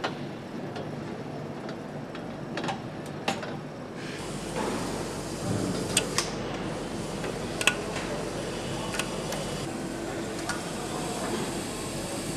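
Engine assembly-line ambience: a steady hum with scattered sharp clicks and knocks of tools and metal parts being handled.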